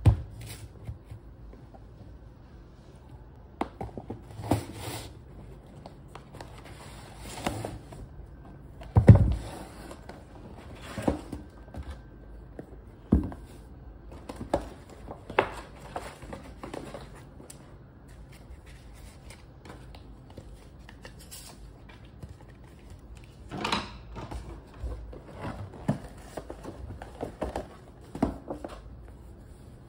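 Paper shopping bag and gift boxes being handled and set down on a tabletop: paper rustling and crinkling between irregular dull knocks, the loudest about nine seconds in.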